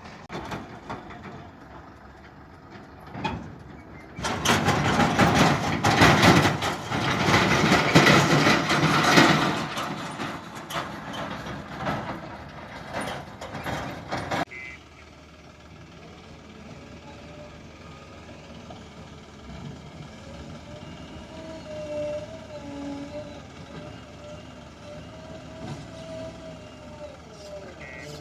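Diesel engines of a JCB 3DX backhoe loader and a tractor at work. A loud rushing noise starts about four seconds in and cuts off abruptly about ten seconds later. After it, an engine runs steadily with a wavering whine.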